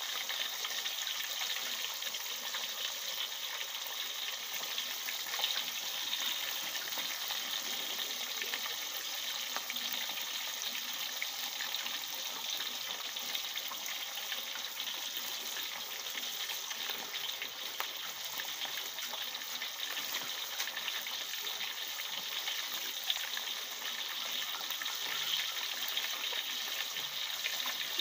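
Asian sea bass (barramundi) deep-frying in hot oil in a steel wok: a steady sizzle with dense small crackles and pops.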